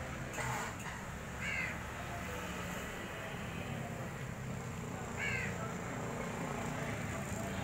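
A crow cawing twice, about four seconds apart, over steady background noise.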